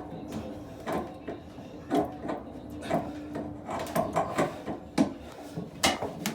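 A tap's back nut being tightened with a hand tool: a series of sharp clicks and knocks, roughly one a second, with scraping between them as the tool is worked round in short strokes.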